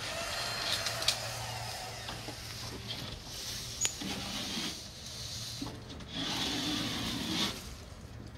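Rubbing and scraping handling noise, with two sharp knocks about a second and about four seconds in.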